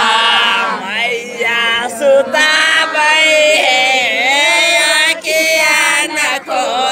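A man singing a North Indian folk wedding song, a gaali geet that teases the groom's party, loudly and without words being spoken, in long wavering held notes with short breaks for breath.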